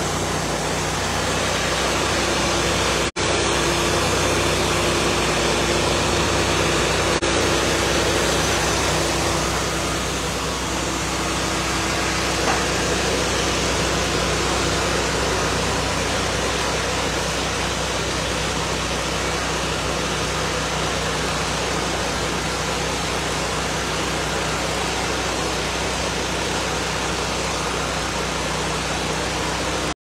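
Portable band sawmill running and cutting a log: its engine and band blade make a steady, loud mechanical noise. A steady hum rides over it and fades out about halfway through.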